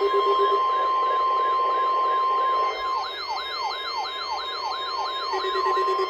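Overlapping weather-radio emergency alert tones during a weekly test. A steady alert tone cuts off about two and a half seconds in, while a siren-like alarm sweeps down in pitch about three times a second and grows louder after it. A low pulsing beep drops out early and comes back near the end.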